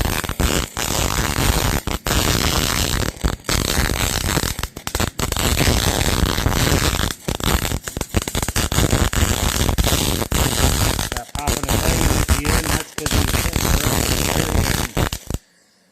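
Arc welder crackling as it lays a weld along the split seam of a steel lawn roller, broken by several brief pauses between beads, and cutting off suddenly near the end.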